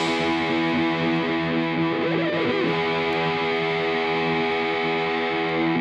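Background music: distorted electric guitar holding sustained chords, shifting to a new chord about two and a half seconds in.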